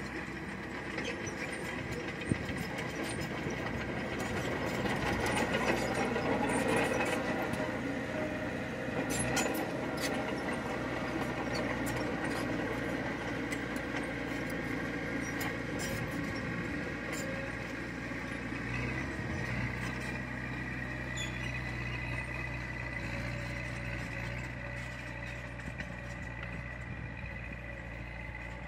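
Diesel engine of heavy earthmoving machinery running steadily, with scattered clicks and knocks. Its low hum grows stronger about two-thirds of the way in.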